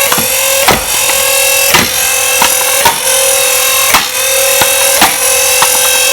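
Motorized flywheel Nerf blaster running with a steady whine and firing darts about once a second, each with a sharp smack. The motor's pitch dips briefly at every shot and then recovers.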